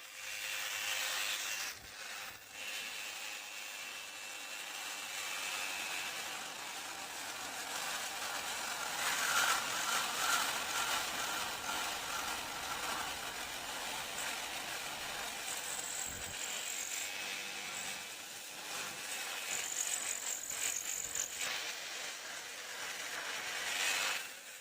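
Reciprocating saw running and cutting through pallet wood: a steady buzzing cut with a faint high whine that shifts in pitch as the blade works.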